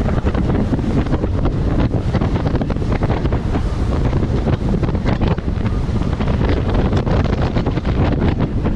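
Strong wind buffeting the microphone aboard a Buster Magnum aluminium motorboat running through choppy waves, with a loud low rumble and irregular gusting thumps. Water and hull noise lie beneath the wind.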